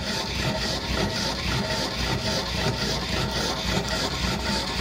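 Homemade alpha-type Stirling engine generator running steadily, its pistons, rocker linkage and belted flywheel making a rhythmic mechanical beat. It runs fairly quietly, with no loud metallic knocking, now that its hot pistons have been cut down.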